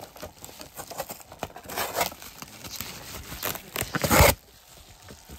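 Bubble wrap and plastic bags crinkling and rustling as they are handled, with irregular crackles. The loudest burst of crinkling comes about four seconds in.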